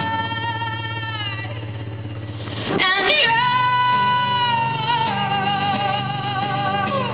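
Female vocalist singing live, holding long notes that slide down at their ends, with a fresh entry about three seconds in, over a steady low hum.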